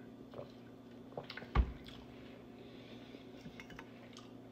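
Quiet eating sounds: soft sipping and mouth noises with a few small clicks, and one short knock about a second and a half in.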